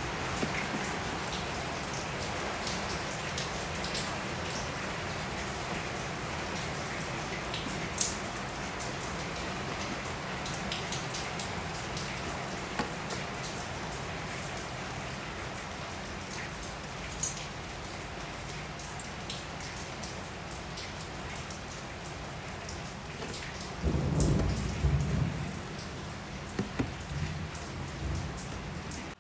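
Steady rain hiss with scattered small clicks. About 24 seconds in, a few louder knocks and rustles as clear plastic snake tubs are handled.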